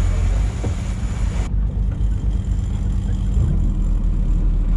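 A sportfishing boat's inboard engines running under way, a steady deep rumble. A rushing hiss over it cuts off abruptly about a second and a half in.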